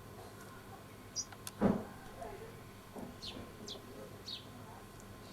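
Garden bird chirping: a short high note, then three short, high, falling chirps about half a second apart. A single dull thump about a second and a half in is the loudest sound.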